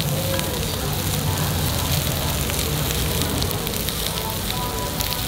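Meat and butter sizzling and crackling steadily on a hot tabletop grill.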